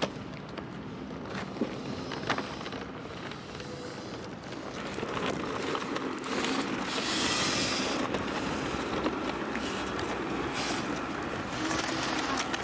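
Hard-shell suitcase wheels rolling over a concrete pier, a steady gritty rumble that gets louder about halfway through, with some wind noise on the microphone.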